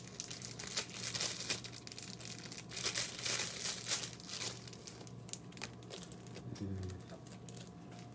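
Thin plastic ice candy bags crinkling as they are handled and pulled open, in irregular crackles that are busiest in the first four or five seconds and thin out afterwards.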